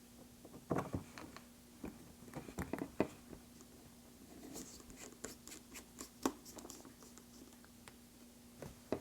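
Small, irregular clicks and taps of a precision screwdriver, tweezers and tiny screws being handled while the screws are taken out of an iPhone X's internal bracket. A faint steady hum runs underneath.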